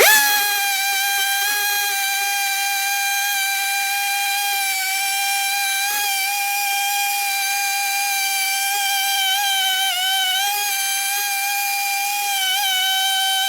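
Husqvarna 395XP two-stroke chainsaw running flat out at a steady high pitch, with brief dips in pitch as the chain takes load in the cut.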